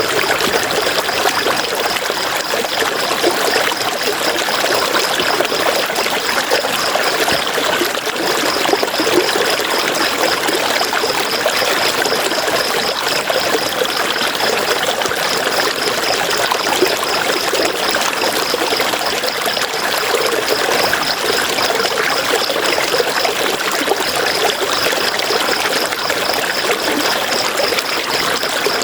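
River water flowing and trickling steadily. Over it runs a high, rapid pulsing trill that stops briefly a few times.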